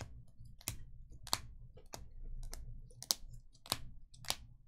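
Rigid plastic toploader card holders clicking against each other as a stack of trading cards is flipped through one at a time. There are about eight sharp clicks at an even pace, a little under two a second.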